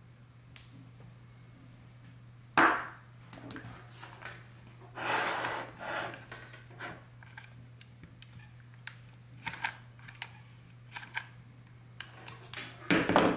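Handling sounds from wax sealing: a brass seal stamp and a hot glue gun loaded with a sealing wax stick are picked up and set down on a ceramic plate. A sharp clack about two and a half seconds in, a rustling stretch around five seconds, a run of small clicks as the glue gun trigger is worked to squeeze out wax, and a louder knock near the end.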